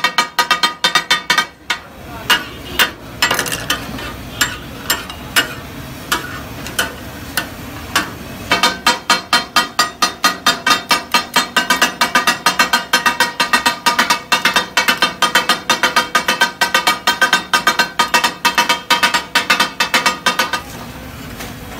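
Flat steel kata kat blades striking a large steel tawa griddle as offal is chopped and tossed on it, making a rapid metallic clatter that rings between strikes. The strikes are irregular at first, then settle into a fast, even rhythm of about four a second and stop shortly before the end.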